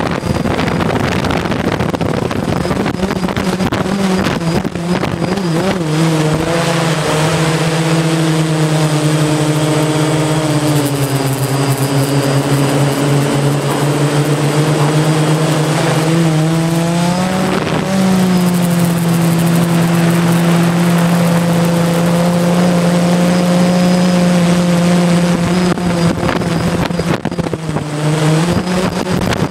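DJI Phantom quadcopter's motors and propellers droning at a steady pitch, with wind noise over the onboard microphone. The drone pitch rises about halfway through and falls back shortly before the end as the motors change speed.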